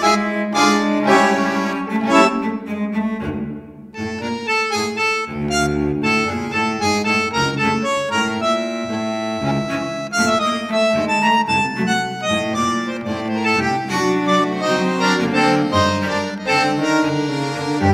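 Instrumental background music with several sustained melodic voices, dipping briefly about three and a half seconds in.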